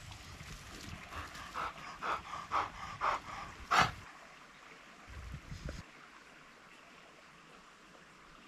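Wire-haired pointer truffle dog sniffing hard at a dig: a run of short, sharp sniffs about two a second, ending in a louder one a little before halfway, then quiet.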